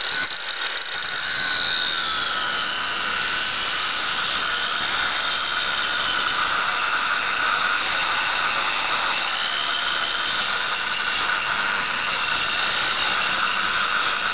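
Angle grinder with a cutting disc slicing through a cast-iron lathe bed. Its motor whine drops in pitch about two seconds in as the disc bites, then holds steady under load over a continuous grinding hiss.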